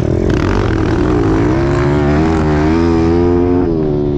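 Dirt bike engine running under throttle, its pitch wavering and climbing through the middle, then dropping off near the end as the throttle eases.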